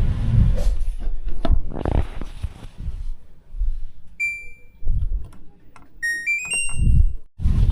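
An electronic beep, then a quick run of four beeps stepping up in pitch, amid low thumps and rustling from handling and footsteps.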